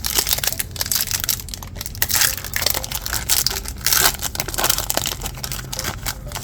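Crinkling and crackling of a foil trading-card pack wrapper being handled and crumpled.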